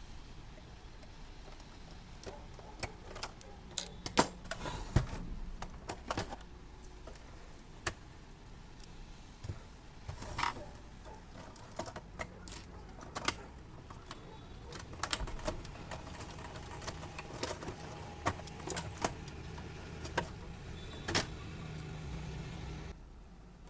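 Irregular clicks and light rattles of small hard parts being handled, like screws and plastic or metal pieces, over a faint steady low hum.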